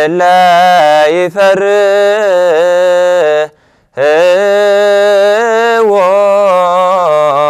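A man's solo voice chanting an Ethiopian Orthodox hymn unaccompanied, in long held notes with small ornamental bends. There is a brief pause for breath about halfway through.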